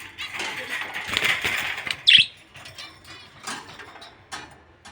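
Cage birds fluttering their wings for a couple of seconds. A loud, sharp squawk follows, then scattered chirps and short calls from small birds such as budgies.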